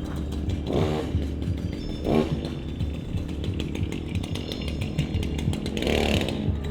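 Chainsaw engine running, revved up briefly a few times.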